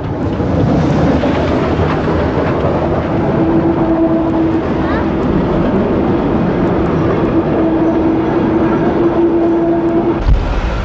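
Double-headed steam train passing close by, the steam locomotives working hard with a dense, noisy exhaust and running sound. A steady held tone comes and goes through the middle of the passage.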